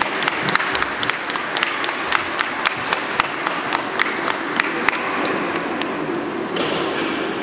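A small audience clapping, individual hand claps standing out a few a second over a softer spread of clapping, thinning out near the end: applause for a figure skater finishing his program.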